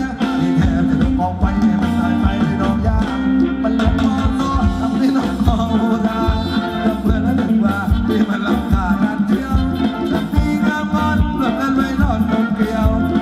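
Live band playing Thai ramwong dance music over loudspeakers: a singer over instruments and a steady drum beat.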